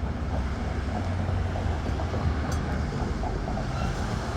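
Oldsmobile 425 Rocket V8 idling steadily.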